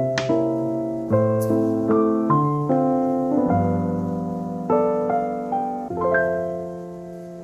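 Background piano music: a slow run of single notes and chords, ending about six seconds in on a held chord that rings and fades away.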